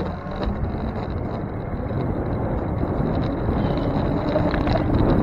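Wind buffeting the microphone of a camera on a moving bicycle, with a low steady road rumble that grows a little louder toward the end.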